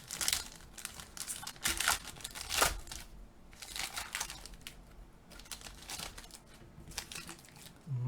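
Wrapper of a 2021 Panini Illusions football card pack crinkling and tearing as the pack is opened. It comes as a string of short rustles, the loudest about two and a half seconds in.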